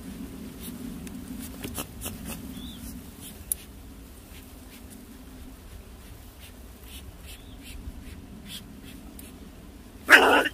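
Faint scattered clicks and rustles of handling, then near the end a sudden loud yelp from the trapped ferret-badger.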